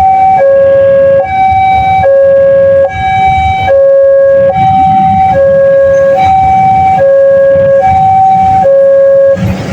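Railway level-crossing warning siren of the Daop 2 Bandung type, sounding a loud two-tone hi-lo wail: a higher and a lower tone alternate, each held just under a second. It cuts off shortly before the end, leaving traffic rumble.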